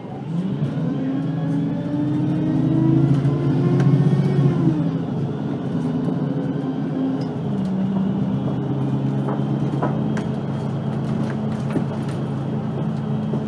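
VDL Citea LLE-120 city bus's diesel engine pulling away, its pitch rising for about four seconds. The pitch drops at a gear change about five seconds in, then the engine runs on steadily at an even speed.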